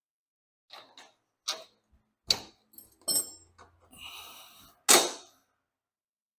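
Hands handling removed bolts, a tool and the golf cart windshield's frame: a series of separate sharp clicks and knocks of hard plastic and metal, with a short rattle around four seconds and the loudest knock about five seconds in.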